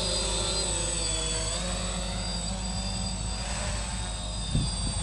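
Electric quadcopter's four motors and carbon-fibre propellers droning steadily in flight. The pitch wavers slightly as the throttle shifts.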